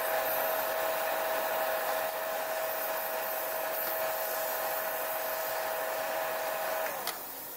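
Steady rush of blowing air with a steady mid-pitched hum, as from a running fan or blower. The hum sinks slightly in pitch and stops about seven seconds in, and the rush falls away with it.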